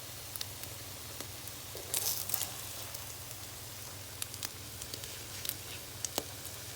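French toast frying in butter in a pan: a steady sizzle with scattered crackles and pops, and a brief louder burst of noise about two seconds in.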